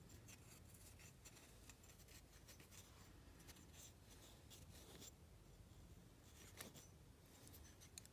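Near silence: faint scratchy ticks and rubbing from fingers handling and turning a chainsaw piston with its rings, over a low steady room hum.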